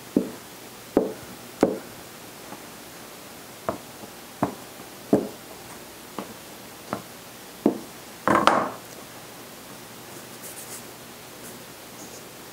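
A steel bench scraper chopping down through tortilla dough onto a silicone mat on the counter: about ten sharp knocks at an uneven pace, with a louder, longer clatter a little past the middle, then quiet handling.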